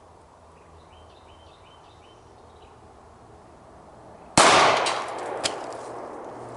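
A single .45 ACP gunshot about four seconds in, loud and sharp, with a short echo trailing off.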